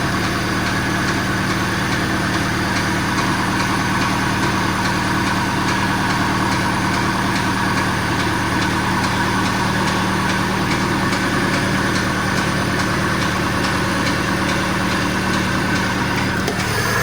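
VAZ 2101 four-cylinder petrol engine idling steadily with a regular knock, which turned out to be a knocking piston pin. The engine gets slightly louder and its note shifts just before the end.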